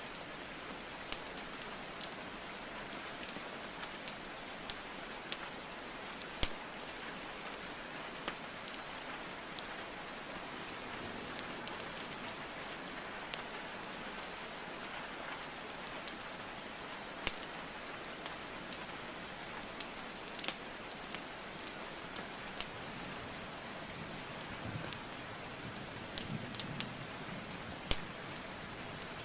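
Steady rainfall hiss with a wood fire crackling over it: irregular sharp pops and snaps of burning logs every second or so. A faint low rumble comes in near the end.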